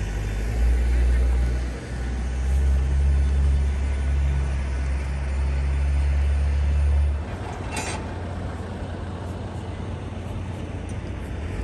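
Airport apron ambience: a heavy low rumble for the first seven seconds or so, which stops abruptly, over a steady background hum, with a short hiss about eight seconds in.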